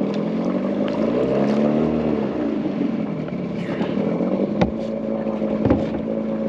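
Small boat motor running. Its pitch rises and falls over a couple of seconds, then holds steady. Two sharp knocks come near the end.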